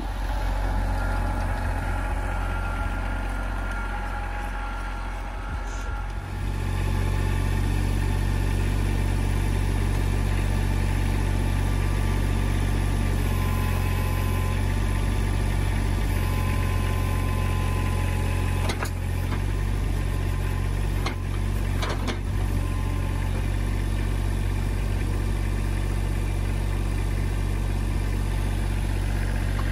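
Kubota L3400 tractor's diesel engine idling steadily, louder about six seconds in. A few sharp clicks or knocks come about two-thirds of the way through.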